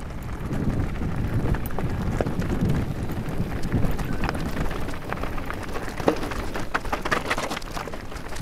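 Mountain bike rolling down a loose rocky trail: the tyres crunch over gravel and stones and the bike rattles, over a steady low rumble. Sharp stone clicks and knocks come thicker in the last two seconds or so.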